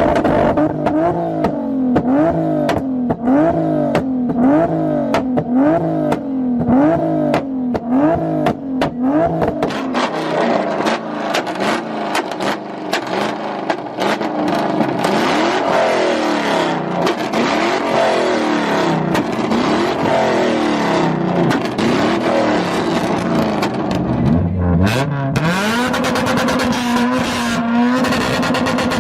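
Supercar engine revved over and over, its pitch rising and falling about once a second, with sharp pops and crackles from the exhaust. Near the end the engine settles into a steady, held note.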